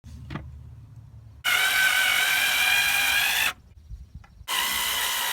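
Small power drill running in two bursts: a steady motor whine for about two seconds, then a second run starting near the end.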